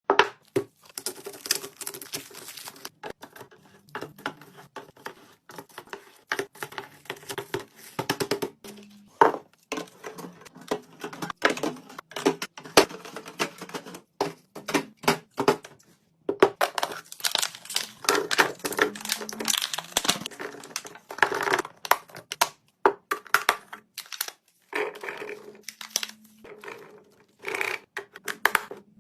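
Plastic packaging crinkling and tearing, with many small clicks and knocks of containers and items being handled and set down while a fridge is stocked.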